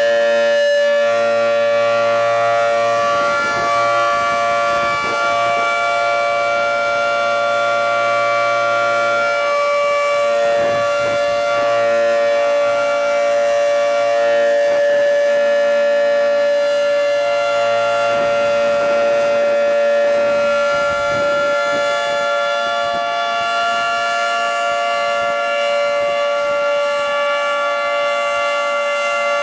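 Federal Signal 2T22 dual-tone electromechanical outdoor warning siren sounding a steady chord at full pitch, loud, its level dipping slightly now and then as the rotating head sweeps around.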